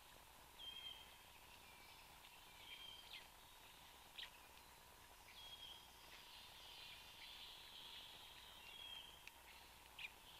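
Faint woodland birdsong: a small songbird repeats a short, high, slightly falling whistled phrase every two to three seconds, with a few brief sharp notes between. A faint steady tone sits underneath.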